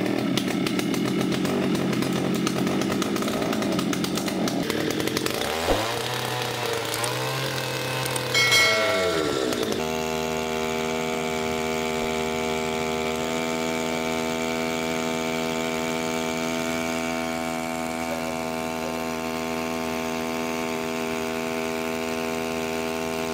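Small two-stroke petrol outboard motor running. The pitch wavers and drops between about six and ten seconds in, then settles into a steady, even engine note as it drives the boat.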